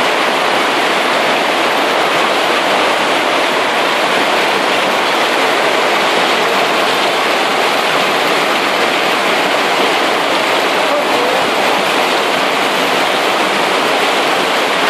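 Heavy hailstorm: hailstones and rain pelting a street, parked motorbikes and roofs, a loud, steady, dense rush of impacts with no let-up.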